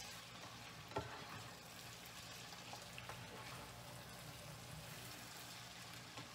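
Potatoes and onions frying in butter and oil in a deep frying pan: a faint, steady sizzle. A spatula knocks against the pan about a second in and taps lightly a few more times as the potatoes are stirred.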